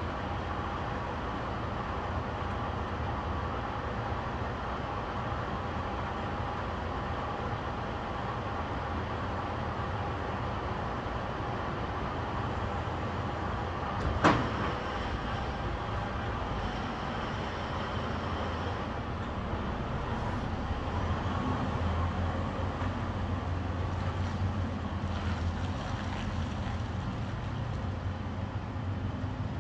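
Semi-truck's diesel engine running steadily as the rig reverses a trailer, its low rumble growing stronger about two-thirds of the way through as the truck moves the trailer. A single sharp crack sounds about halfway through.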